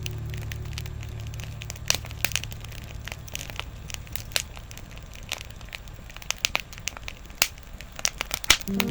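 Wood campfire crackling, with irregular sharp pops and snaps several times a second. Background music fades out in the first couple of seconds and comes back in at the very end.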